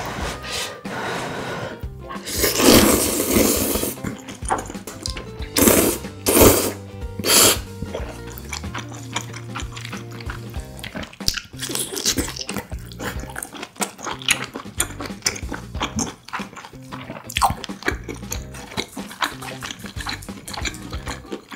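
Jjapaguri noodles slurped into the mouth, one long slurp a few seconds in and three short ones soon after, then close-up wet chewing with small sticky clicks.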